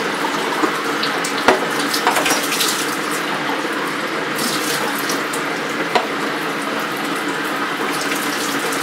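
Kitchen mixer tap running steadily into a sink as a puppy feeding bottle and hands are rinsed under the stream, with a sharp knock about a second and a half in.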